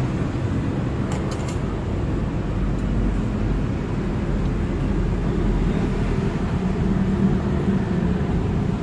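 Steady low background rumble, like distant road traffic, with a few light clicks about a second in.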